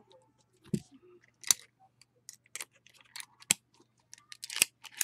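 Trading-card packs and cards being handled and opened: a string of sharp clicks and snaps with brief crinkles of wrapper and card, the loudest snaps about one and a half and three and a half seconds in.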